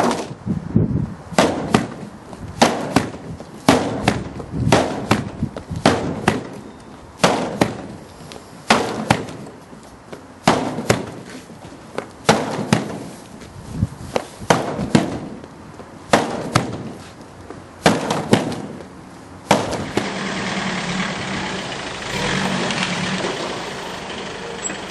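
Repeated sharp knocks of a Durapol plastic free-standing sign panel being knocked about and rocking hard on its weighted base, often in pairs, about one or two a second. They stop for the last few seconds, where a van engine runs steadily close to the sign.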